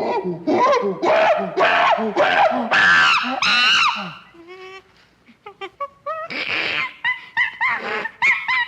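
Chimpanzee calling: a series of rising hoots that build into loud screams, followed by shorter, sharp calls repeated in quick succession.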